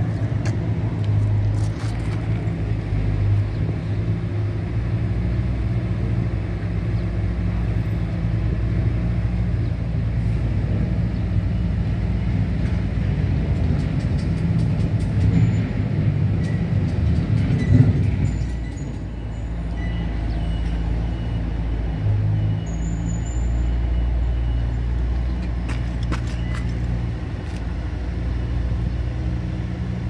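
A steady, low engine or machine hum, with a brief knock about two-thirds of the way through.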